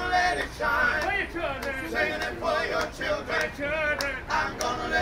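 Street vocal quartet singing a song, with men's voices in front and held notes with vibrato.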